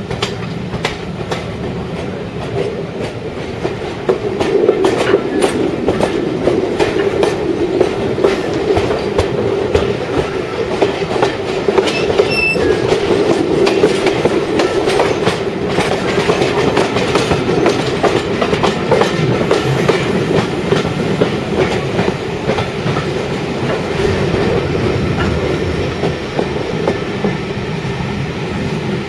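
Passenger coaches of a moving train heard from an open carriage window: a steady rolling rumble with wheels clicking over rail joints and pointwork, getting louder about four seconds in.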